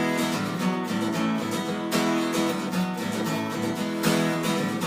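Acoustic guitar strummed fast in a down-down-up pattern, with quick changes between E major, B sus4 and A major chords.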